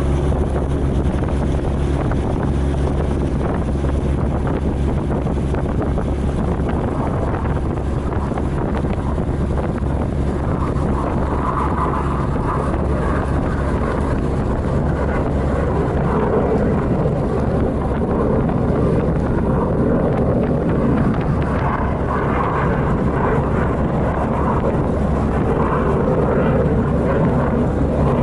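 A steady engine drone with an even stack of low tones, mixed with wind and water noise; from about ten seconds in a broader rushing sound swells and falls over it.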